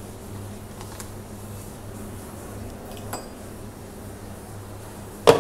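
Low steady hum of a quiet kitchen with a couple of faint taps, then a single sharp clink near the end as kitchenware is knocked on the worktop while spices are added.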